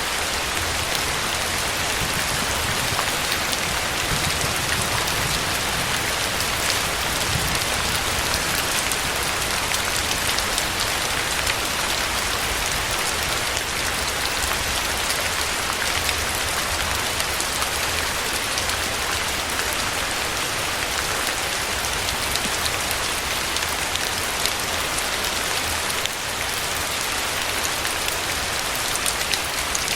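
Steady, fairly heavy rain falling on a surface, a dense even hiss with many individual drop hits.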